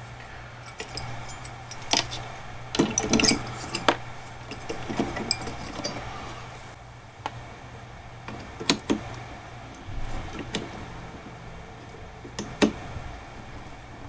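Intel stock CPU cooler being fitted onto a motherboard: scattered sharp plastic clicks and knocks as the heatsink is seated and its push-pin fasteners are pressed and snapped into the board's mounting holes, a few in quick clusters.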